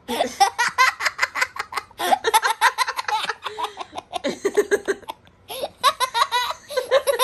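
A young girl laughing hard in long runs of quick giggles, breaking off briefly about five seconds in before laughing again.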